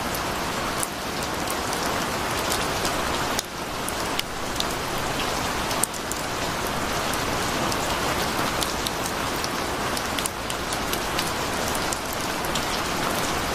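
Heavy rain pouring down: a dense, steady hiss of rain on pavement and puddles, with scattered drips ticking through it. The level dips briefly a few times.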